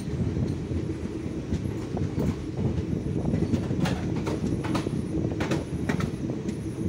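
Indian Railways express passenger train running, heard from on board: a steady rumble of wheels on the rails, with a run of sharp clacks from about halfway in as the wheels cross track joints.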